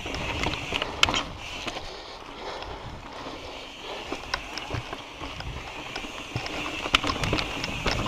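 Mountain bike rolling over slickrock and sandy dirt: a steady rush of tyre and trail noise with scattered sharp clicks and knocks from the bike, plus some wind on the microphone.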